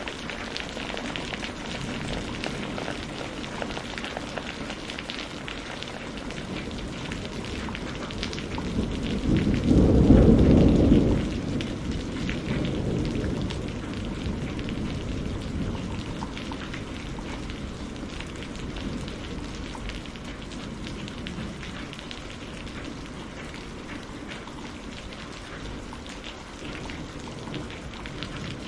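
Thunderstorm with steady rain falling throughout. About eight seconds in a loud, deep rumble of thunder swells, peaks a few seconds later, then rolls away over the next few seconds.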